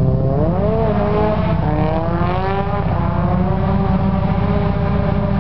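Drift car engine revving hard: the pitch rises about half a second in, then holds at high revs with small rises and dips as the throttle is worked through the slide.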